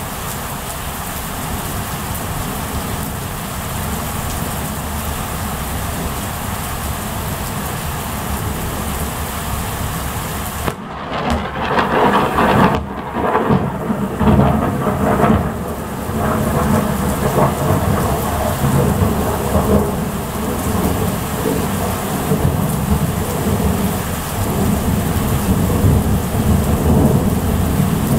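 Steady rain, then about eleven seconds in a loud clap of thunder that keeps rolling and rumbling afterwards, overloading the camera microphone.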